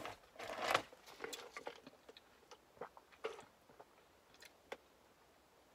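A plastic drink cup being handled and sipped through a straw: a short rustle, then a scatter of small clicks, mostly in the first three seconds.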